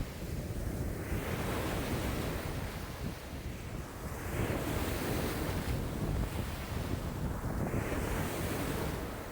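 Wind-driven lake waves breaking and washing on the shore, the wash swelling every three to four seconds over a constant rush of strong wind buffeting the microphone.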